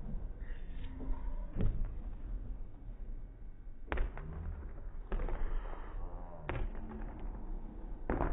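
A basketball bouncing on a hardwood gym floor: about five separate thuds at uneven intervals, each with a short echo.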